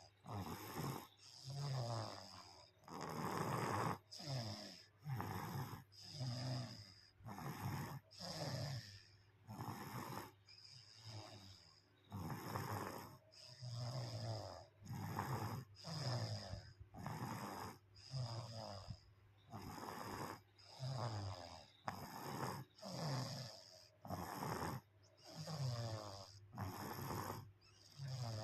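A sleeping baby snoring like an adult, one snore about every second in a steady rhythm.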